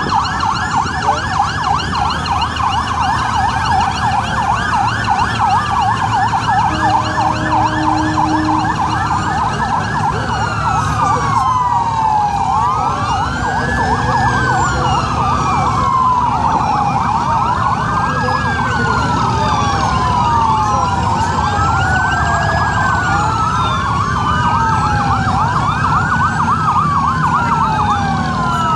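Several boat sirens sounding at once, fast yelping sweeps at first, then slower rising-and-falling wails overlapping each other from about twelve seconds in, over a low rumble. A short low steady horn note sounds about seven seconds in.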